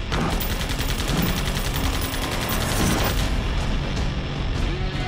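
Rapid automatic gunfire in long bursts over a film music score, thinning out to scattered shots after about three seconds; a held note of the score comes in near the end.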